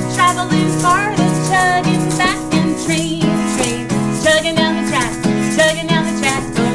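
Acoustic guitar strummed in a steady chugging rhythm, with children shaking plastic egg shakers along to the beat to imitate a train.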